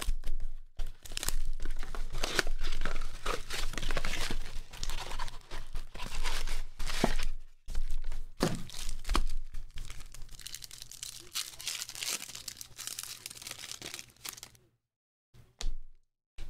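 Cardboard blaster box torn open and foil-wrapped trading card packs crinkling and tearing as they are handled and ripped open. The crackling and tearing goes on almost without a break, then stops about fifteen seconds in, leaving a few short rustles.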